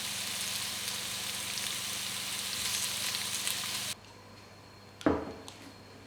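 Food sizzling in a frying pan, a steady hiss that cuts off abruptly about two-thirds of the way through. About a second later, a single sharp knock with a short ring.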